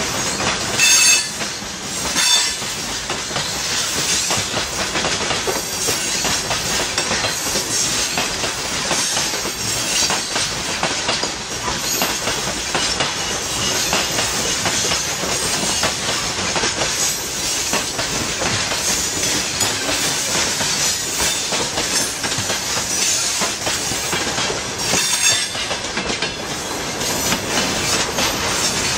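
Freight train wagons rolling past on the rails: a steady rumble and clatter of wheels over the rail joints. A few short, high metallic squeals come from the wheels, one about a second in, one near two seconds and one near the end.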